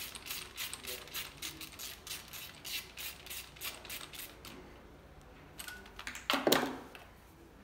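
Hand ratchet clicking in a quick run, about four clicks a second, as it turns a fitting in the cylinder head of a Mercedes-Benz OM612 2.7-litre diesel. The clicking stops about four and a half seconds in. About six and a half seconds in there is one brief, loud knock.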